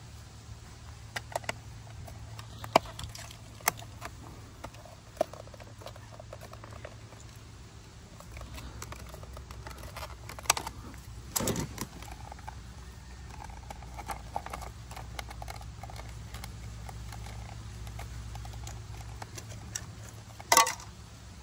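Plastic clicks and knocks as the cover of an e-bike's wiring box is handled and pressed into place, with sharper snaps about halfway through and near the end.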